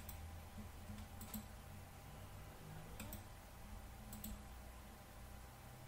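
Computer mouse clicking four times, faint and sharp, each click a quick press-and-release, over a low steady hum.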